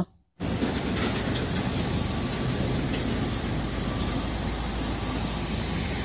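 A fuel tanker truck and road traffic passing, making a steady rumble and road noise that starts suddenly just after the beginning.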